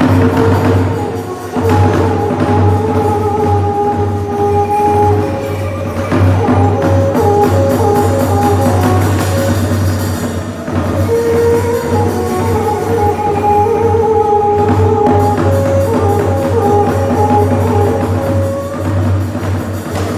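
Khmer traditional ngũ âm ensemble music: a melody of held notes with percussion underneath.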